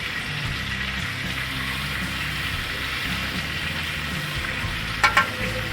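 Steaks sizzling steadily in butter in a cast iron pan, under background music, with a short metallic knock about five seconds in.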